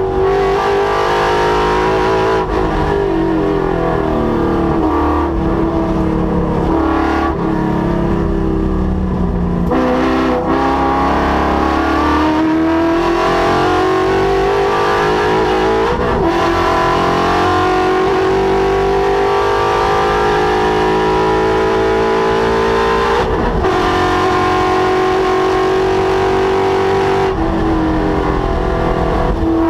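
Ford Mustang's 5.0 L Coyote V8 at full throttle on a race track. The engine note climbs in long pulls and drops sharply at each gear change or lift, several times.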